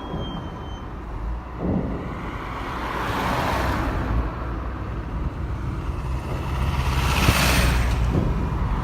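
Road traffic: a steady low rumble with two vehicles swelling past, one a few seconds in and one near the end.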